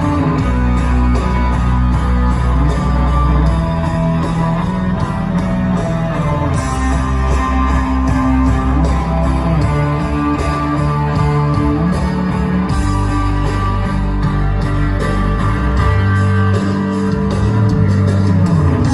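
Instrumental music led by guitar over a bass line and a steady beat, with no singing.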